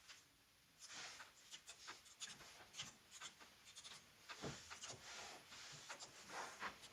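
Faint, irregular keystroke clicks from a Keychron K3 low-profile mechanical keyboard being typed on over Bluetooth.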